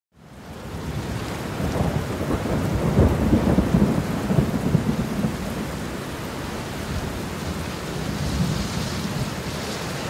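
Heavy rain pouring, with a rolling rumble of thunder loudest in the first half.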